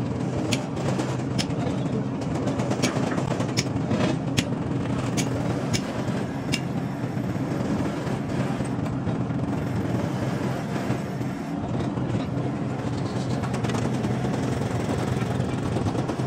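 Workshop press running with a steady low hum while a steel leaf spring is bent under its ram. Sharp metallic clicks come about twice a second for the first six or seven seconds, then the hum goes on alone.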